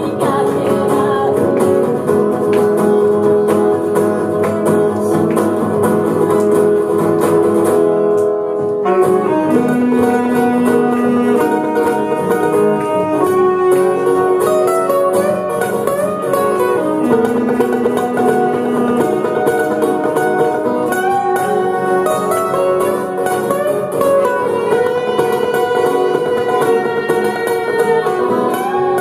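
A small live band playing a song, with electric guitars and a saxophone, steady and loud throughout.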